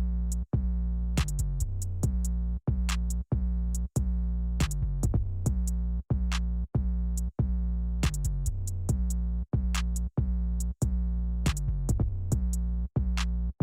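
Electronic hip-hop beat: a deep, sustained drum-machine bass broken by short gaps, with crisp hi-hat ticks on top.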